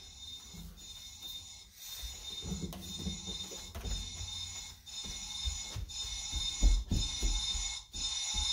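A steady, high-pitched electronic ringing like an alarm, starting about two seconds in, with a few low thumps and knocks underneath, loudest near seven seconds in.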